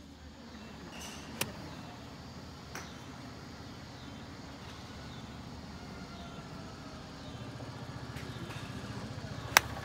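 Golf clubs striking balls: three sharp clicks, one about a second and a half in, a fainter one a little over a second later, and the loudest near the end. A steady low rumble runs underneath and grows louder in the last few seconds.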